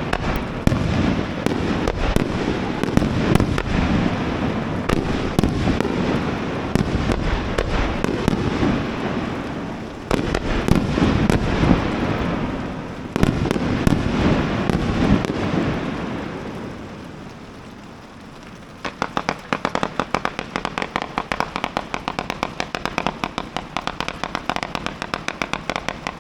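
Fireworks display: dense, continuous booms and bursts of shells that die away about two-thirds of the way through. Then comes a rapid run of sharp crackling pops, about five a second.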